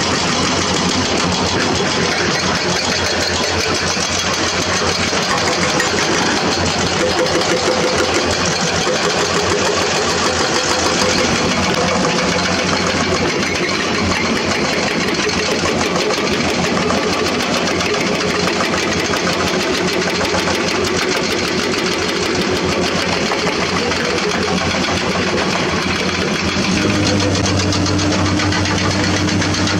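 Hydraulic excavators' diesel engines running steadily as the machines work. Near the end a deeper steady engine hum comes in close by.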